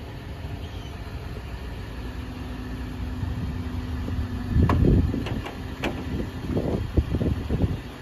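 ARB onboard air compressor running steadily. About four and a half seconds in, a loud burst of air and a series of sharp clicks and knocks as the tire inflator hose is handled at the tire.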